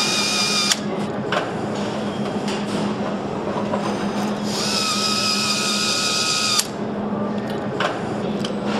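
Handheld electric power screwdriver with a long socket extension driving bolts into a motorcycle engine casing. It gives a high whine that stops sharply under a second in, then a second run of about two seconds in the middle that also cuts off sharply. A steady low factory hum lies underneath.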